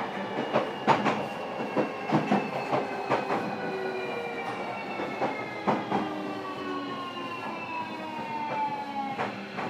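Running sound inside a motor car of a JR Kyushu 305 series electric train as it slows down. The traction-motor whine falls steadily in pitch, and the wheels click over rail joints less and less often as the train loses speed.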